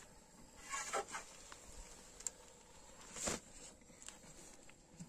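Faint rustling and scraping of a long thin wooden rolling pin working a sheet of bread dough on a flour-dusted cloth, with two louder brushing swells about a second in and just past three seconds.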